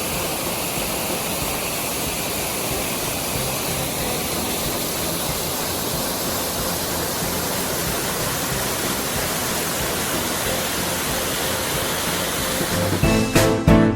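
Waterfall: a steady, even rush of falling water. Music with a beat comes back in near the end.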